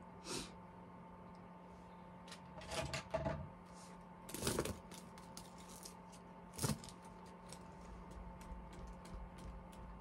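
Small handling sounds of makeup products and tools: a few brief clicks and rustles, then a run of faint quick taps over the last couple of seconds, with a low steady hum underneath.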